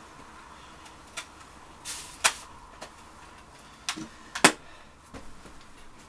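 Scattered knocks and clatters of things being handled and set down while a room is tidied, several separate hits with the sharpest, loudest knock about four and a half seconds in.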